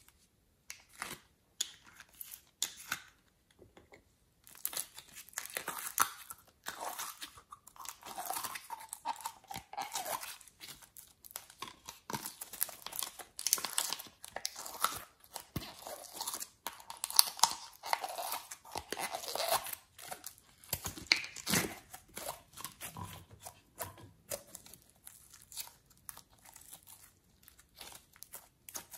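A few light clicks, then thin plastic slime bottles crackling and crinkling in the hands while glossy slime is squeezed out of them. The crackling thins out over the last several seconds.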